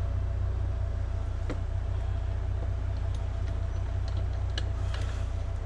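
A steady low hum with a few light clicks and taps, from small steering-column parts being handled and greased on the bench.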